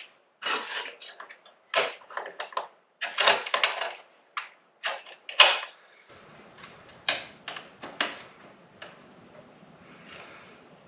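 Irregular clanks, clicks and scrapes of metal exhaust parts and hand tools being handled and fitted on a motorcycle. About six seconds in the clatter thins to scattered clicks over a faint steady hum.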